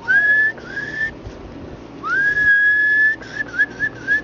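A person whistling to call puppies: two short rising whistles, then a longer whistle that rises and holds, then a quick warbling trill.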